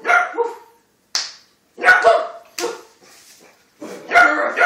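Beagle puppy barking in a quick series of short, high barks, about five in a few seconds, during play.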